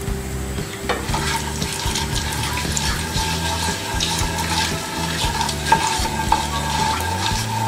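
Whole spices (panch phoron seeds, bay leaves, cinnamon, cardamom) sizzling and crackling in hot oil in a nonstick wok, with many small pops, while a wooden spatula stirs them around the pan. A steady tone sits underneath from about a second in.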